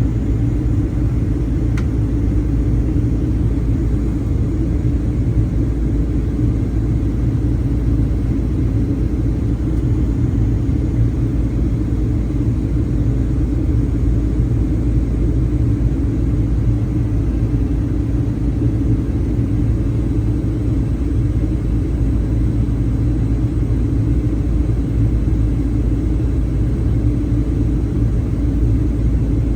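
Steady low cabin rumble of a Boeing 737-900ER in flight, the hum of its engines and the rush of air over the fuselage heard from a passenger seat.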